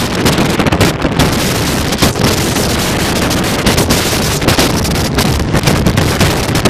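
Strong wind buffeting the microphone: a loud, continuous rumble with gusty flutter.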